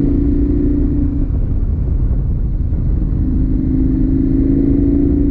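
KTM motorcycle engine running at a steady road speed over a low rumble of wind and road noise. Its steady note drops away about a second in and comes back about three seconds in.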